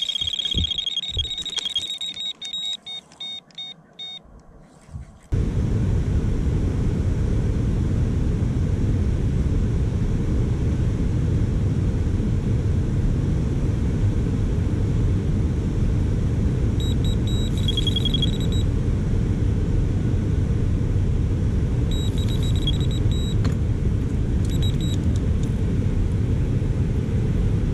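Carp bite alarm sounding a rapid run of high electronic beeps that die away within the first four seconds. Then a loud, steady low rush of water pouring over a weir, with short bursts of bite-alarm beeps twice in the last third.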